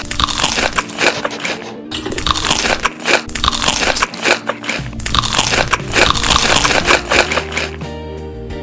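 Crunchy food being bitten and chewed close to the microphone, a dense run of loud crunches.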